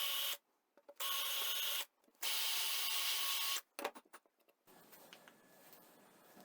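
Three short bursts of a tool abrading a surface, each starting and stopping abruptly, the last and longest lasting about a second and a half, followed by a few light clicks.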